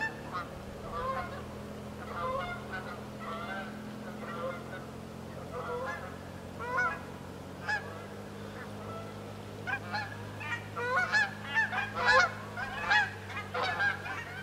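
A flock of geese honking as it flies over, the calls coming thicker and louder in the last few seconds. A steady low hum runs underneath.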